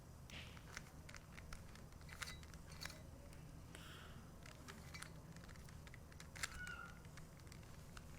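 Faint, irregular clicking of a Rubik's Cube's layers being turned one-handed, over a low steady hum, with a brief higher-pitched sound about six and a half seconds in.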